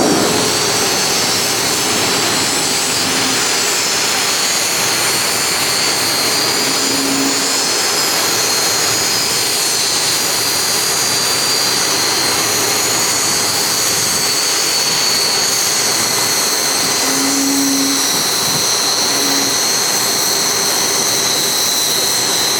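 Jet engine running steadily, a continuous rush with a high turbine whine that sinks slowly in pitch.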